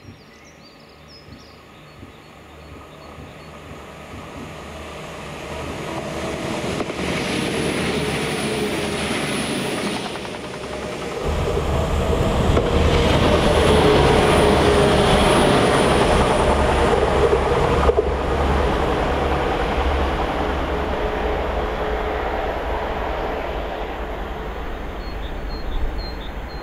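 A Northern passenger multiple unit approaching, passing close by and running away. It builds from faint to loudest about halfway through as it goes by, with a steady tone over the rumble of the wheels, then fades as it recedes.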